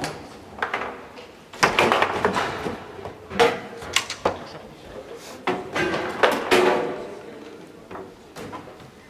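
Foosball in play on a Garlando table: a run of sharp knocks and bangs as the ball is struck by the plastic men and hits the walls and the rods slam against their stops, several hits a second or so apart.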